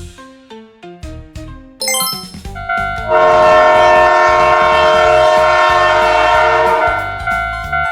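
A train horn blowing one long blast of several tones at once, about four seconds long, over background music, with a sparkling chime glissando just before it.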